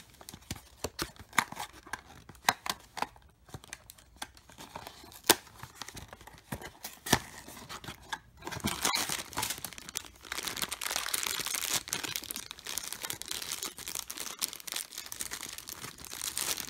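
Unboxing a small cardboard blind box: scattered sharp clicks and snaps as the box and its torn cellophane are handled and the flaps opened, then steady crinkling of a thin black plastic bag being unwrapped from about nine seconds in.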